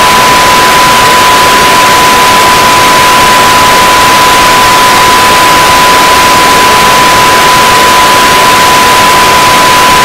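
Loud, steady static hiss with a single unbroken high-pitched beep tone over it.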